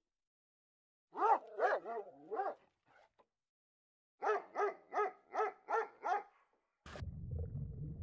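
A dog barking: four barks, then after a pause a run of six evenly spaced barks, about three a second. Near the end the barking gives way to a sharp click and a steady low rumble.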